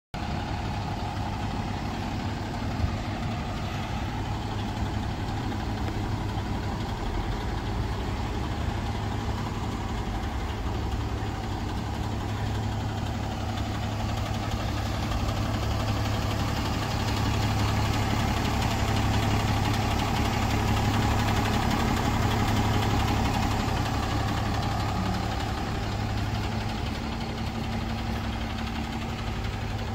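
DAF LF 230 tanker truck's four-cylinder diesel engine idling steadily, a constant low hum that grows louder for several seconds midway.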